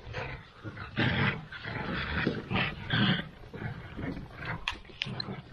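Two-month-old Central Asian Shepherd puppies growling as they tug at a cloth between them, in repeated short rough growls about a second apart.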